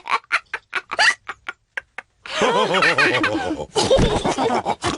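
Cartoon pig characters laughing. The first two seconds are short, quick snorting bursts; after a brief pause, several voices break into laughter together.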